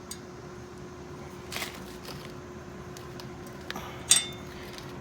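A steady shop hum with two brief, sharp bursts of metal tool noise, about one and a half and four seconds in, while an axle bearing is being pulled from the rear axle housing.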